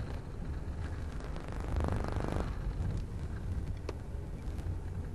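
Low, steady rumble of a taxi cab driving, heard from inside the cab, with a brief rapid rattle about two seconds in.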